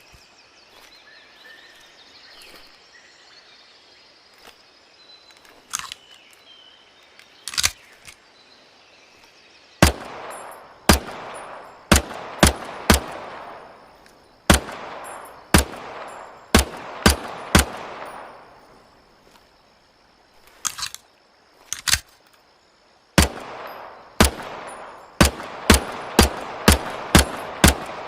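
SIG Sauer P320 pistol being fired in single shots, each sharp crack followed by an echoing tail. Two isolated shots come after a quiet stretch, then a steady string starts about ten seconds in at roughly one shot a second, quickening near the end to about two shots a second.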